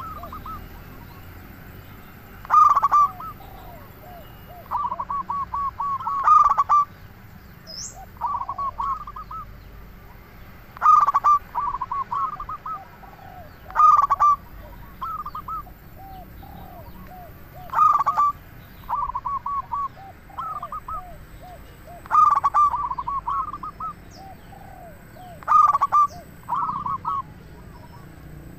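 Male local perkutut (zebra dove) singing gacor: a loud opening coo followed by a quick run of short coos, phrase after phrase about every four seconds.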